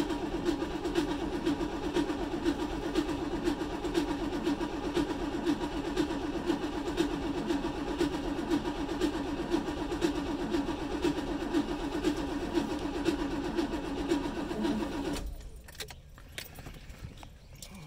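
Car's starter motor cranking the engine in a steady, rhythmic turn-over that goes on for about fifteen seconds without the engine catching, then stops abruptly: a car that won't start.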